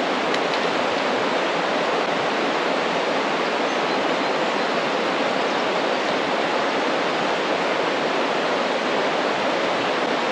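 Steady, unbroken rush of water pouring over a small river waterfall.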